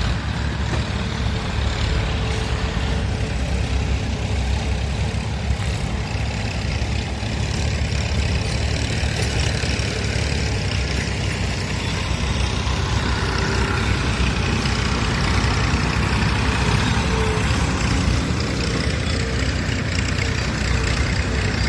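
A heavy engine running steadily, with a low, even drone.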